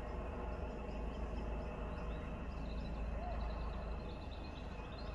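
Steady outdoor background noise with a low rumble of wind on the microphone and faint, repeated bird chirps; no blast is heard.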